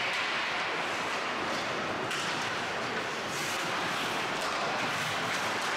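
Ice rink sound during play: skate blades scraping and cutting the ice over a steady arena noise, with a few sharper scrapes in the middle.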